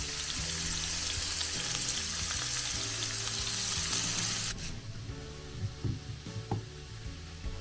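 Chicken hearts sizzling in a frying pan, a dense steady hiss that cuts off suddenly about four and a half seconds in, followed by a quieter stretch with a few light knocks. Faint background music underneath.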